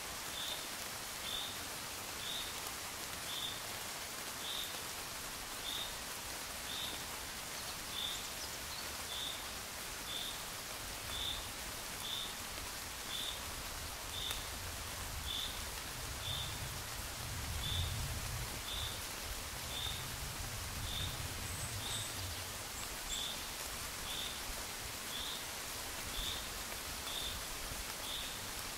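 Gentle rain falling steadily, an even hiss, with a short high chirp repeating about once a second. Around the middle a low rumble swells and fades away.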